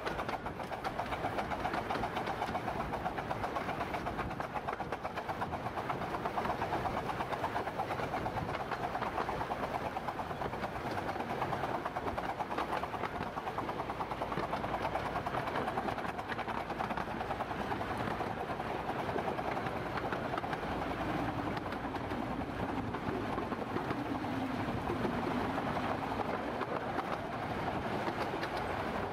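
A 15-inch-gauge miniature steam locomotive of the Romney, Hythe and Dymchurch Railway working hard along the line. It makes a steady, rapid beat over the running noise of the train.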